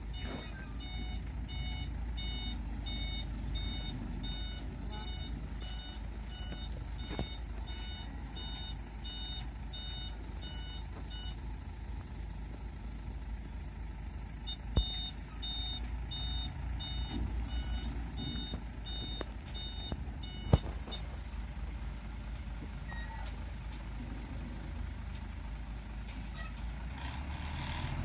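An electronic vehicle beeper pulses about twice a second in two long runs, over the low steady running of a Hino 500 truck's diesel engine. Two sharp knocks stand out, one a little past the middle and one a few seconds later.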